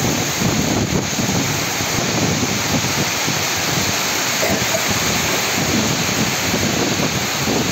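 Heavy rain pouring in a storm, with strong gusts of wind tossing the tree foliage. The gusts buffet the microphone in uneven low rumbles over the steady hiss of the rain.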